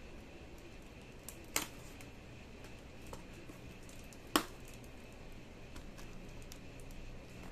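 Scissors snipping at a tape-wrapped parcel: two sharp clicks, about one and a half and four and a half seconds in, with a few fainter ticks between.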